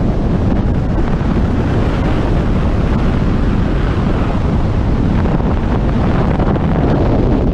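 Loud, steady rush of freefall wind buffeting the microphone during a skydive.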